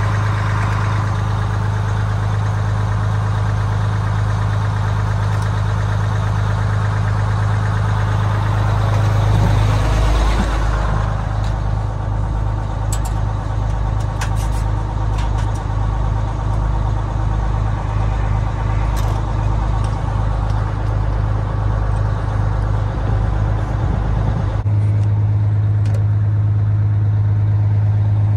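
A 1983 Thibault ladder truck's diesel engine idling with a steady low hum. Its sound changes about ten seconds in and returns to the same steady hum near twenty-five seconds, with a few light knocks in the middle stretch.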